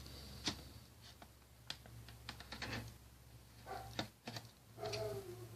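Scattered light plastic clicks and taps as a laptop keyboard is handled and fitted into its chassis.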